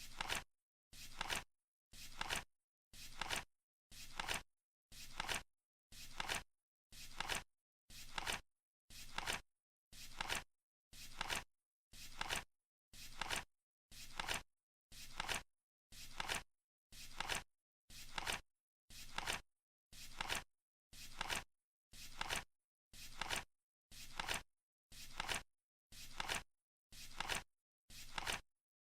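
Flip-clock countdown timer ticking steadily, one short dry click each second with silence between.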